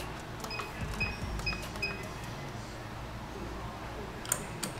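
Milling machine's digital readout keypad beeping as its buttons are pressed to zero the axes: four short, high beeps in the first two seconds, over a low hum. A couple of sharp clicks come near the end.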